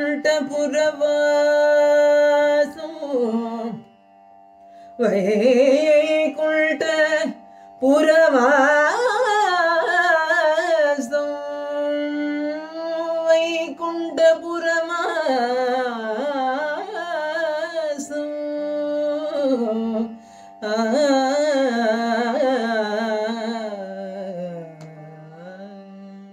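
A woman sings Carnatic classical vocal over a steady drone, in long phrases with heavily oscillating ornaments (gamakas) and a few short breaks. Near the end her voice fades out, leaving the drone alone.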